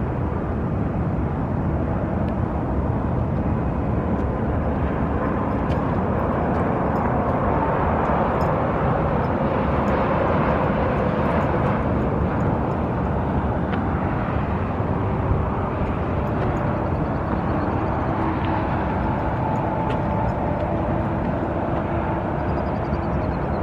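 Long freight train running steadily through the canyon below, heard from a distance as an even rumble with faint shifting tones.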